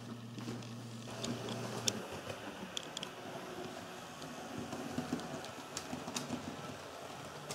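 HO scale model train running on its track: a steady electric hum that stops about two seconds in, then a running rumble with scattered sharp clicks of wheels and rail joints.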